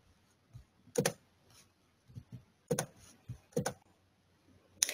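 Scattered clicks at a computer as a screen share is being started: about four sharp clicks at irregular intervals, two in quick succession, with fainter clicks between.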